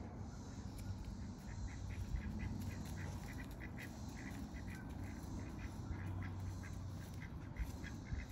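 Birds calling in the background, a rapid run of short repeated calls, over a low steady hum.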